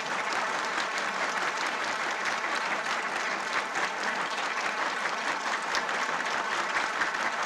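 Large audience applauding: a steady, dense clatter of many hands clapping.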